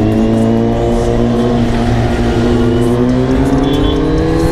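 Sport motorcycle engine running under way, its pitch holding steady and then rising over the last second or so as the bike accelerates.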